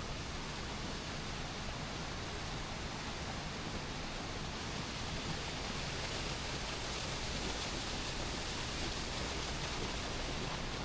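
Waterfall: a steady rush of falling water, growing slightly louder toward the end.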